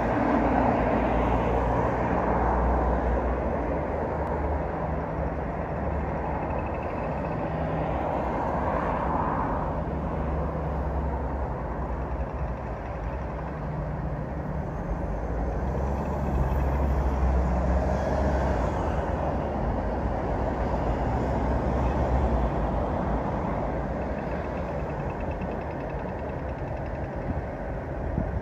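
Steady low engine rumble of road traffic, a continuous hum that swells and eases slowly as vehicles pass.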